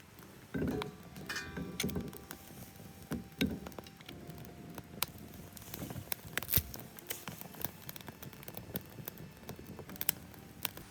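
Wood campfire crackling, with irregular sharp pops and snaps, and a few louder knocks in the first couple of seconds.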